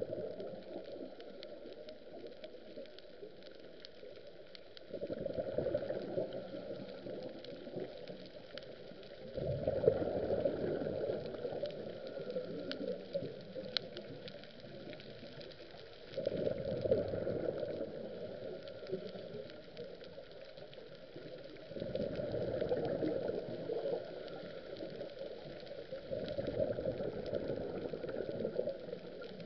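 Scuba regulator exhalations heard underwater: a two- to three-second burst of bubbling every five to six seconds, five in all, over a quieter steady hiss.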